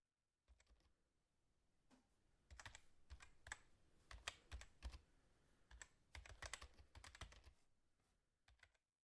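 Near silence broken by faint, irregular clicks and taps, in two loose clusters.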